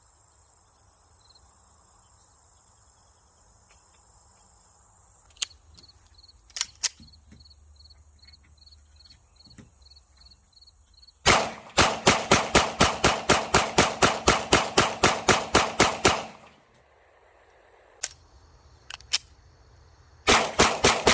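Sig Sauer P365 FUSE 9mm pistol fired in a fast, even string of about twenty shots, roughly four a second, starting about halfway through. After a short pause with a few sharp clicks of handling, a second rapid string begins near the end.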